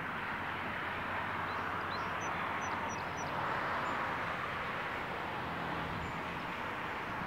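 Steady hiss and rumble of traffic on a highway, swelling about three and a half seconds in as vehicles pass. A few faint high chirps come about two seconds in.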